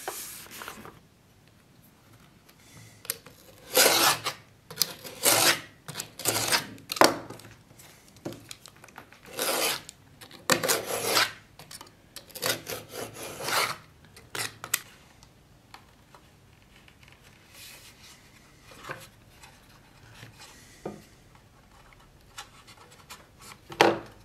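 Hand scraping with a rasping sound, about eight firm strokes in the first half, then lighter, sparser scratches. A sharp knock comes near the end.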